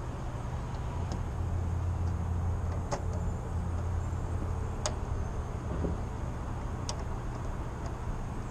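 A steady low hum, with four short sharp clicks a couple of seconds apart from hands working on the panel and parts of a heat pump's outdoor unit.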